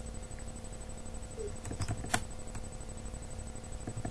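Faint room noise with a steady low hum and a few short sharp clicks in the middle, a computer mouse being clicked.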